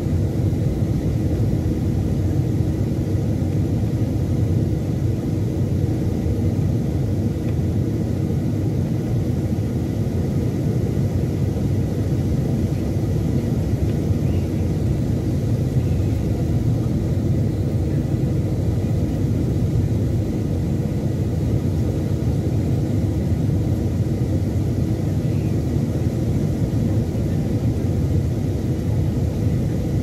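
Cabin noise of a Boeing 737-800 in flight, heard inside the cabin over the wing: its CFM56-7B engines and the airflow make a steady low rumble with a faint hum.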